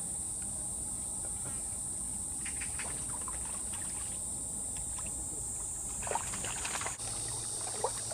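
Steady high-pitched chorus of summer insects, with faint scattered clicks and a few brief short sounds near the end.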